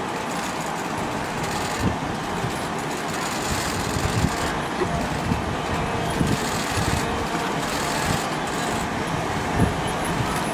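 A herd of wildebeest crossing a river: a steady rush of splashing water and hooves, with scattered low thuds.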